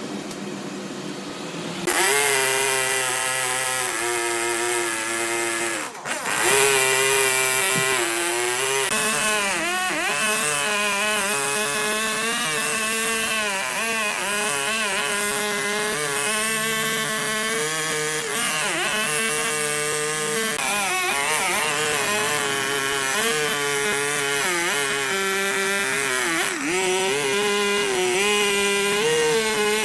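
A high-speed power tool motor working wood, its whine dipping in pitch for moments as it bites under load. It starts about two seconds in and breaks off briefly near six seconds.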